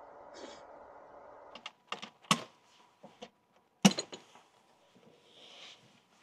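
A string of sharp clicks and knocks as hands grip and move the hard plastic case of a portable power station, the loudest about four seconds in. Before them, a steady low hum cuts off about a second and a half in.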